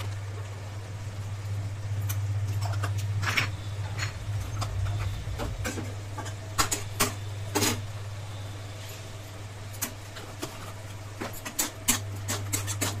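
A spatula scraping and knocking against a kadai while mixed vegetables are stirred with spice powder, in short irregular clicks and scrapes that come thicker near the end, over a steady low hum.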